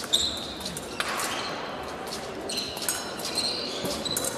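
Épée blades clashing, with short metallic rings several times, over the thuds of fencers' footwork.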